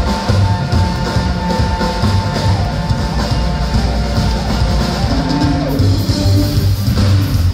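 Live band playing loud amplified music: electric guitar lines over drum kit and a strong low bass, heard from the audience.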